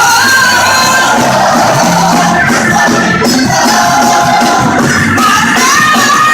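Live gospel music: a band playing with singing over it.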